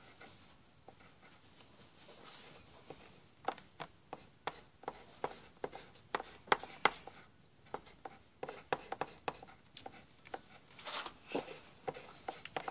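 Coloured pencil scratching on paper in quick short strokes, a faint, irregular run of small scratches and taps that picks up about three seconds in.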